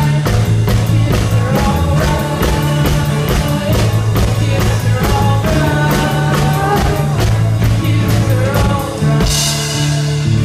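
Live rock band playing: a boy singing lead over a drum kit, electric bass and acoustic guitar, with steady driving drum hits and a cymbal crash near the end.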